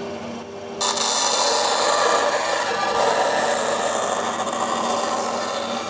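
Bandsaw running, its blade biting into a thin wooden board about a second in and then cutting steadily through it.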